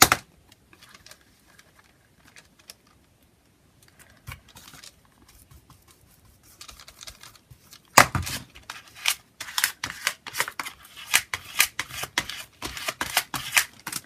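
Faint paper rustling, then from about eight seconds in a quick, irregular run of crisp clicks and crackles as a brayer is rolled over glued paper pieces on a collage page.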